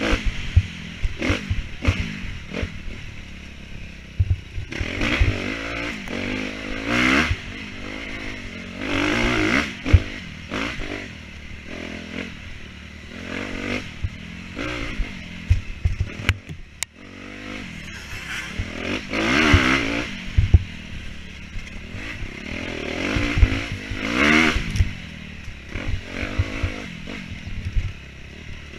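Dirt bike engine revving up and falling back again and again as it is ridden hard, with scattered clattering knocks throughout.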